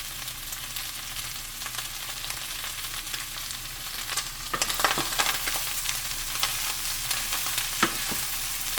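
Fresh-cut corn kernels sizzling in hot grease in a pan, a steady hiss. From about halfway through, a few sharp knocks and scrapes of a utensil against the pan as the corn is stirred.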